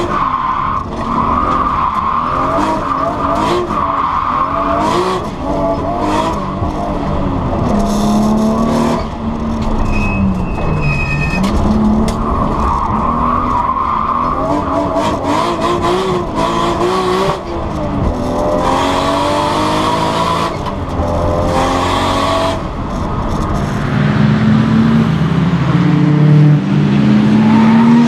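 Nissan Skyline GT-R R32 N1's single-turbo RB26DETT straight-six heard from inside the cabin, driven hard on track. Its pitch repeatedly climbs and drops with full throttle, gear changes and lifts, and the tyres squeal as the car slides. Near the end the sound changes to the car heard from trackside.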